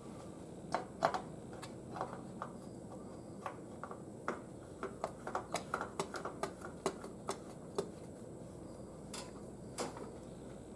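Hands handling small parts, making a string of irregular light clicks and taps, a few each second, the loudest about a second in.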